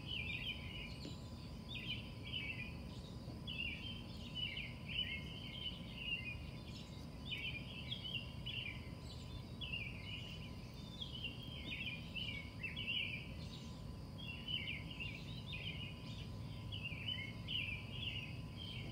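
Short bursts of high chirping calls repeat about once a second over a low, steady background rumble.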